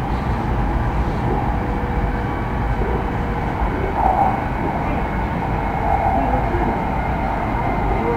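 Train running at speed, heard from inside the carriage: a steady rumble with a faint thin whine over it.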